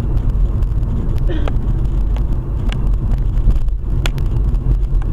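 Steady low rumble of a moving car's engine and tyres heard inside the cabin, with a few sharp clicks or knocks through it.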